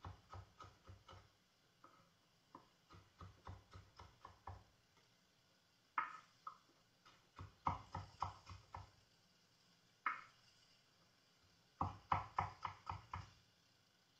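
Kitchen knife chopping carrot into thin matchsticks on a wooden cutting board: runs of quick taps, about four to five a second, broken by short pauses.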